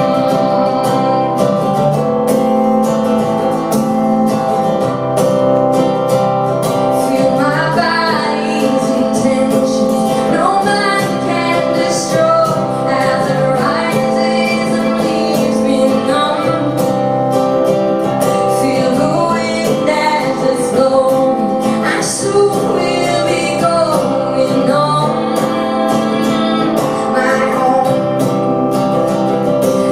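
Live song: strummed acoustic guitar with drums, and a woman's singing voice coming in about eight seconds in over the steady accompaniment.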